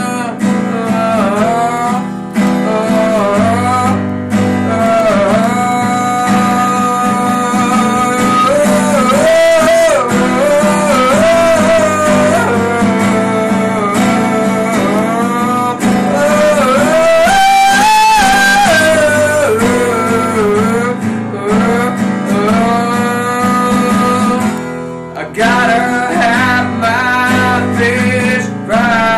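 A man singing a slow melody, with long held and bending notes, while strumming an acoustic guitar.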